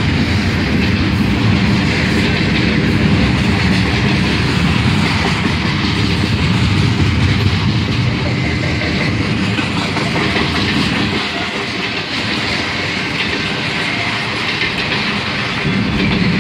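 Piggyback intermodal freight train rolling past, its wheels clacking over the rail joints in a steady rumble that eases slightly about two thirds of the way through.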